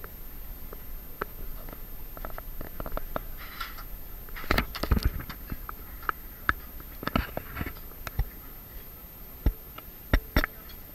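Camera handling noise: irregular knocks, clicks and rubbing on the microphone, with the heaviest bumps about halfway through and near the end.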